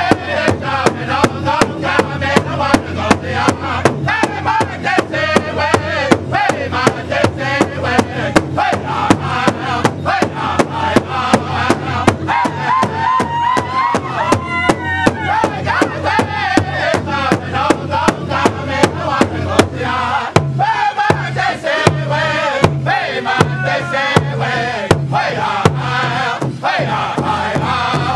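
Powwow drum group: several men striking one large hide drum together with padded sticks in a steady, even beat while chanting together in high voices, with a high rising cry about halfway through.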